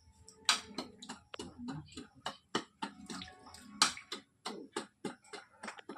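Irregular sharp taps and knocks, several a second, like hand carving tools striking neem wood.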